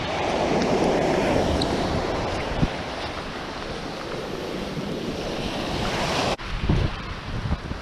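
Sea waves washing onto the beach, swelling in the first couple of seconds, with wind buffeting the microphone. The sound cuts out for an instant about six seconds in, and low wind gusts thump on the microphone after that.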